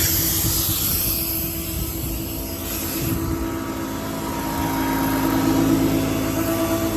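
Ford 6.7-litre diesel engine running with its PTO-driven hydraulic pump engaged, a steady whine that swells and rises slightly in pitch about four to six seconds in, as under hydraulic load. A hiss fades out over the first few seconds.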